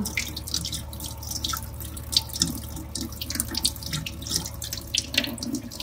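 Water running from a tap into a sink, with irregular splashes.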